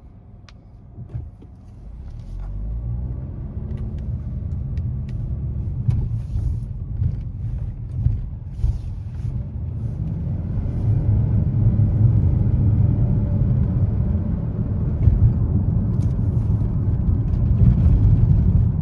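Nissan Rogue Sport's MR20DD 2.0-litre four-cylinder engine and road noise as the car pulls away and drives. The engine note rises as it accelerates about two seconds in, then settles into a steady, loud rumble.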